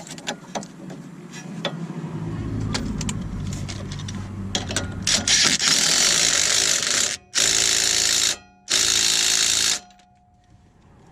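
Impact wrench run in two short bursts of about a second each, after a longer run, driving the new nut onto a sway bar end link stud. The stiff new link keeps the stud from turning, so no second wrench is needed. A few clicks of tools being handled come first.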